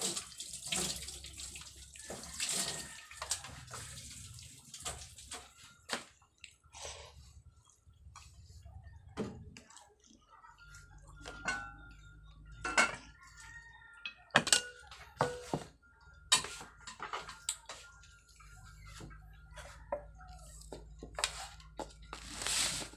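Close-up eating sounds: wet chewing and mouth smacks, with scattered sharp clicks and taps of a spoon against a bowl.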